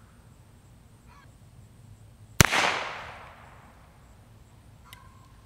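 A single shot from a Heritage .22 revolver firing a CCI .22 shotshell, about two and a half seconds in: a sharp crack that trails off over about a second.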